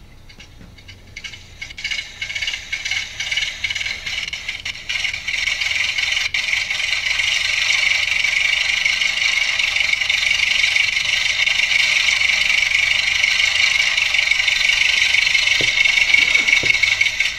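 Small speaker driven by a DFPlayer Mini MP3 module playing back an audio file: a loud, thin, hiss-like noise with no bass. It starts about a second in, comes in choppy pulses for the first few seconds, then runs steady.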